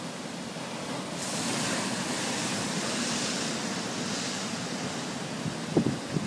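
Ocean surf washing against shoreline rocks, a steady hiss that swells about a second in and eases a few seconds later. A couple of short low thumps near the end.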